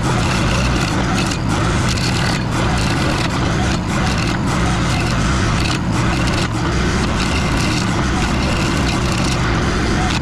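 Mini skid steer engine running under load while a Toro stump grinder attachment grinds into a stump, a steady dense grinding noise with brief dips.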